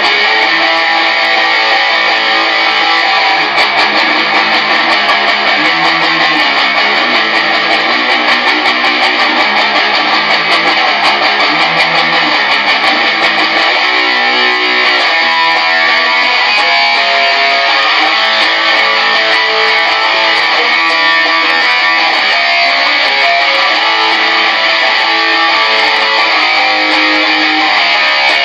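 Stratocaster-style electric guitar strumming rock chords loudly and without a break; about halfway through, the part changes to clearer, higher notes.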